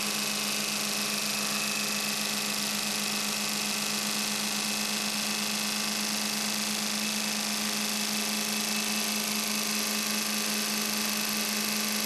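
CR-Kromrey converter running with both armatures spinning: a steady machine hum with a strong low tone and a hiss above it.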